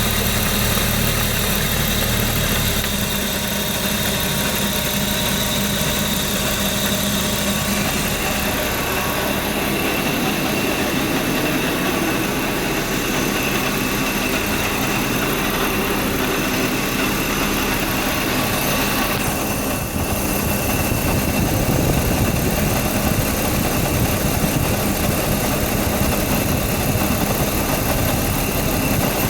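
BMW E36 328i's 2.8-litre straight-six idling steadily. About twenty seconds in the sound dips briefly and shifts in tone, then carries on at the same level.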